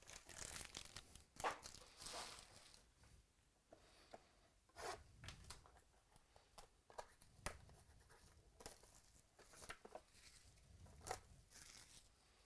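Faint tearing and rustling of packaging, with scattered small clicks and taps: a sealed trading-card box or pack being torn open and its cards handled.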